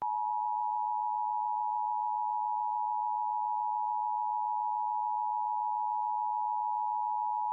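Emergency Alert System attention signal: two close-pitched steady tones sounding together, beating slightly, starting abruptly. It marks the start of an emergency alert broadcast, here the required monthly test.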